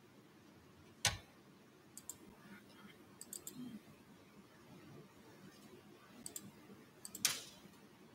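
Scattered faint clicks and knocks in a quiet hall. The sharpest come about a second in and about seven seconds in, with lighter ticks between them.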